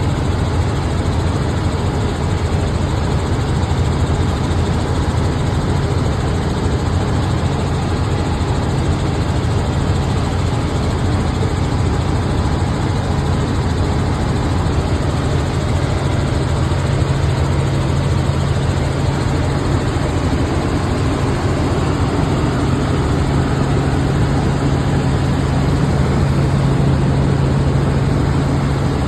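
Helicopter in flight heard from inside the cabin: a steady low drone of engine and rotor with a rush of noise over it, the low hum growing slightly stronger in the second half.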